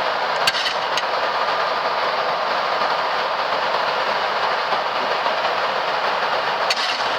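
Steady rush of airflow and engine noise on a Boeing 737 MAX flight deck in the initial climb just after takeoff, with a few brief clicks about half a second in, at one second, and near the end.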